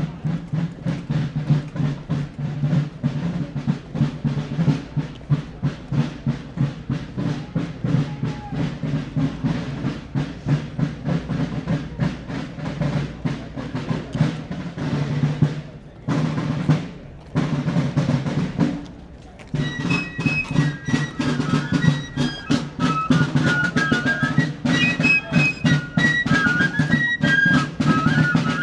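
Fife and drum corps playing a march: snare drums beating a fast rolling cadence, breaking off briefly twice, then fifes coming in with a high melody about two-thirds of the way through.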